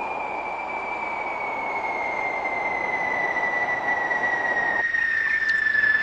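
Cartoon sound effect: a long whistle gliding slowly and steadily down in pitch, over a rushing hiss that drops out about five seconds in.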